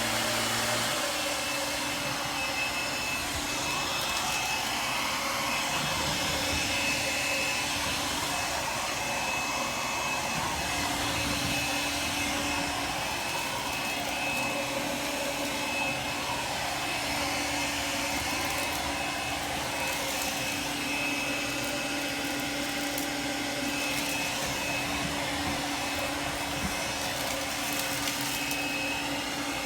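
Shark Navigator Freestyle SV1106 cordless stick vacuum running steadily on its hard-floor setting, a constant motor whine with a high tone over the airflow.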